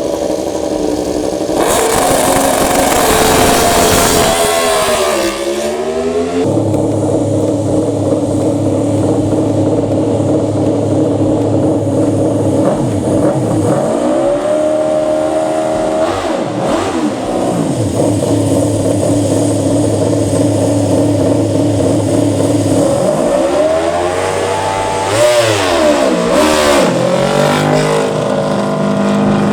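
A MotoGP racing motorcycle engine running at a steady fast idle for long stretches, with rev rises and falls in the middle and again near the end.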